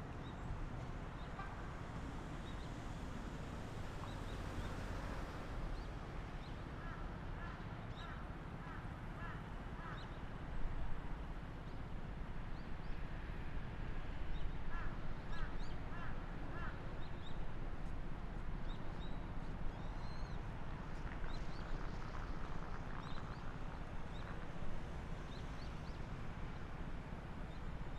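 Outdoor ambience with a steady low background rumble. Over it a bird calls in quick runs of about five calls, twice, and smaller birds chirp now and then.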